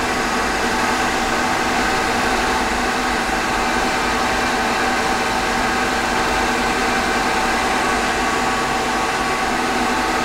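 Emco Compact 5 CNC lathe running: the spindle turning and the motors giving a steady hum with several steady whining tones, while the carriage feeds slowly through the first cutting pass at a low feed rate override.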